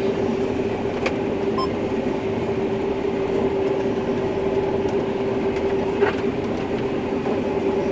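Combine harvester running steadily, heard from inside the cab: a constant engine and machinery drone with a steady whine over it. Two short clicks come through, about a second in and about six seconds in.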